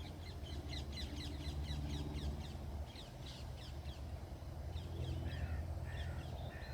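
Wild birds calling: a quick run of short, high, downward chirps, then a few lower falling calls in the second half, over a steady low background rumble.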